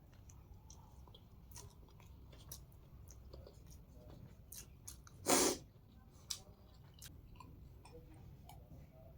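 Close-miked chewing of spicy hakka noodles, with small wet mouth clicks throughout. About five seconds in there is one short, loud noisy burst.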